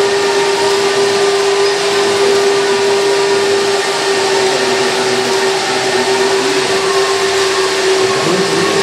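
Radio-controlled model excavator and trucks working, a steady machine whine with a constant mid-pitched tone over a dense hiss.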